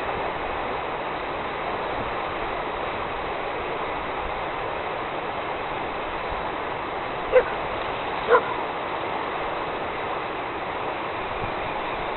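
Steady rushing of a river in flood, with a dog barking twice, about a second apart, a little past the middle.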